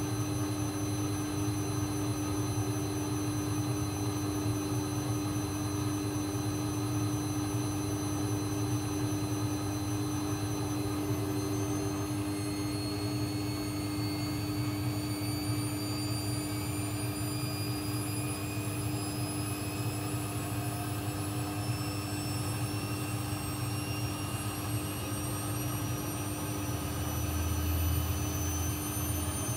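AEG Lavamat 1400 front-loading washing machine running, its motor whine slowly rising in pitch from a little before halfway as the drum speeds up for a spin. A low rumble swells briefly near the end.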